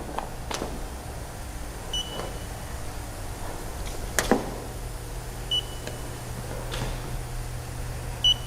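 Short, high electronic beeps about every three seconds, with a few sharp clicks in between, over a low steady hum.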